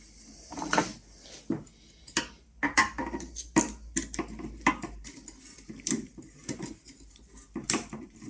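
Metal Jubilee (worm-drive hose) clip clinking and clicking against the heater's metal exhaust pipe as it is fitted: a string of irregular sharp clicks and knocks.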